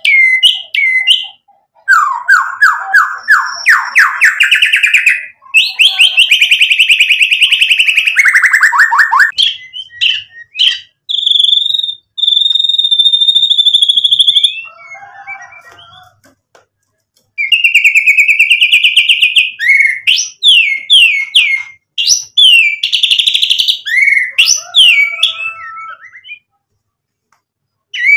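White-rumped shama (murai batu) singing a varied song of rapid trills, rattling phrases and quick up-and-down sweeps, with one long steady high whistle about halfway through and short pauses between bouts.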